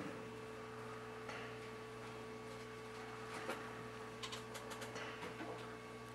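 Quiet room tone: a steady low electrical hum, with a few faint clicks and ticks in the second half.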